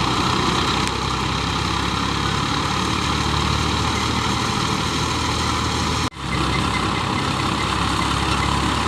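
Wheat thresher running steadily under engine power: a constant low engine hum beneath a dense rushing noise from the threshing machine. The sound drops out for an instant about six seconds in and picks straight up again.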